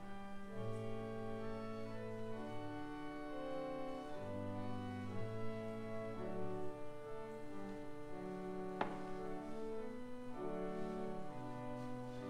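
Church organ playing slow, sustained chords over a moving bass line. A single sharp click is heard about nine seconds in.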